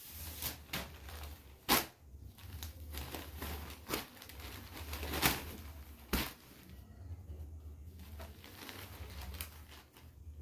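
Cotton saree being handled and unfolded onto a cloth sheet: rustling and swishing of fabric with a few sharp clicks, over a steady low hum.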